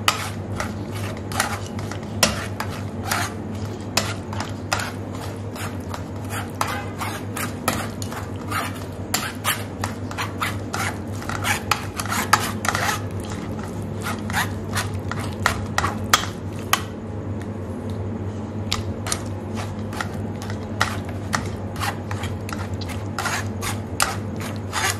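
Metal ladle scraping and pressing soaked tamarind pulp against a stainless-steel mesh strainer, with frequent irregular scrapes and clinks of metal on metal. This is the pulp being rubbed through the sieve to extract the tamarind paste.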